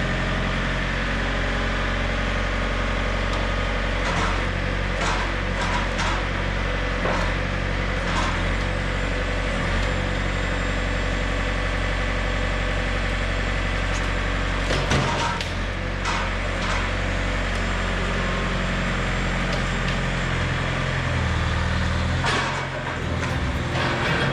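An engine running steadily, with scattered knocks and clunks over it; the engine's note shifts about fifteen seconds in.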